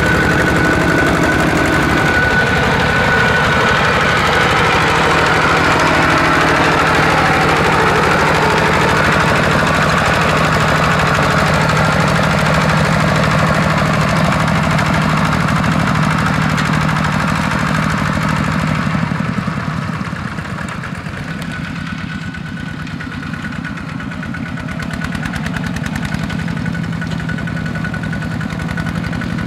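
Single-cylinder diesel engines of Kubota two-wheel walking tractors running steadily under load while ploughing. The sound dips a little somewhat past halfway and rises again near the end.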